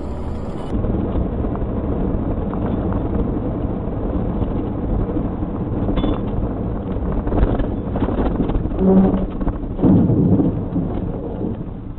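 Road and engine noise inside a car driving on a highway. From about nine seconds in come louder, irregular crashing bursts as a loaded logging truck ahead leaves the road and overturns.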